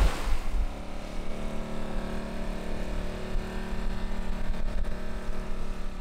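Steady mechanical drone of a motor running at an even pitch, with a low rushing haze beneath it.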